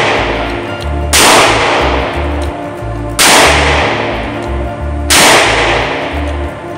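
Taurus 856 Defender .38 Special revolver firing three deliberate shots about two seconds apart. Each shot rings out in the reverberant indoor range. Background music plays underneath.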